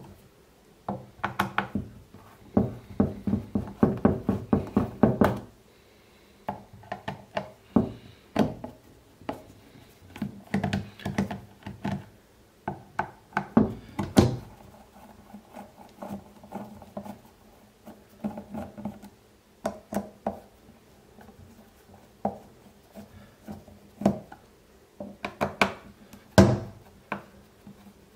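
Small screwdriver turning screws out of a Dali Katch G2 speaker's plastic back plate: a long run of small clicks and scrapes, with knocks of the tool and the speaker on a wooden tabletop. The clicking is dense for a few seconds near the start, and there is a louder knock near the end.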